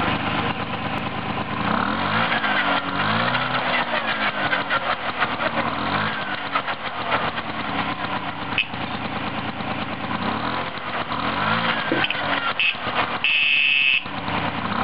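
A 1969 Piaggio Ciao moped's 49 cc single-cylinder two-stroke engine running on its stand, its pitch rising and falling several times as the throttle is blipped. Near the end a steady high tone sounds for under a second.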